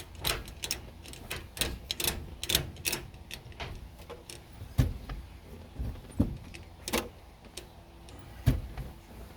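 Irregular clicks and knocks of small metal parts and tools being handled and set down, with a few sharper knocks about five, seven and eight and a half seconds in.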